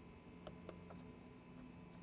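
Near silence: a faint steady hum with three light clicks in the first second.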